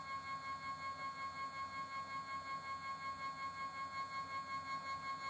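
Stepper motor driving a 150 mm rotary table, running at a steady speed and giving off a steady high-pitched whine with a fast, even pulsing in its loudness. The whine cuts off sharply as the motor stops at the very end.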